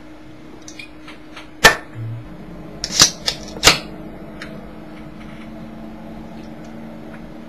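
A few sharp knocks and clicks from a drink can and things on a desk being handled: one about a second and a half in, then a cluster of three around three seconds in, with lighter ticks between them.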